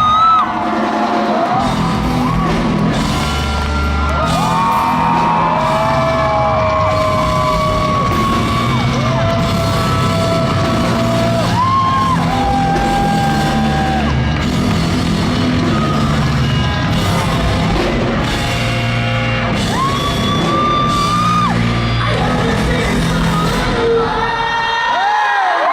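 Live post-hardcore rock band playing loud in a large hall, with a lead singer holding long sung notes over guitars, bass and drums and some yelling. The band's low end cuts off near the end as the song finishes.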